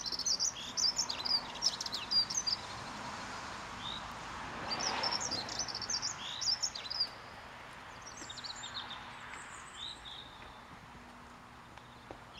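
Small songbirds chirping and singing in groups of rapid high notes, with a brief rush of noise about five seconds in.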